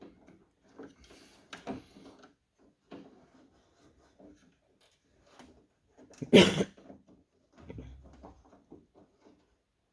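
Small clicks, knocks and rattles of a 2008 Kia Sorento's door-lock rod and handle parts being worked into place inside the door shell, with one sharp, much louder knock about six and a half seconds in.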